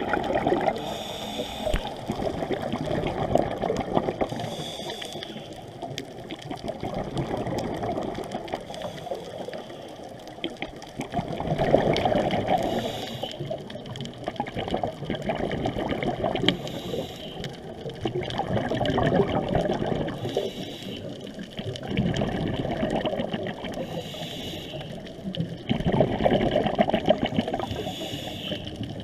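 Scuba diver breathing underwater through a regulator: a short hiss with each inhale every few seconds, and a bubbling rush of exhaled bubbles between breaths.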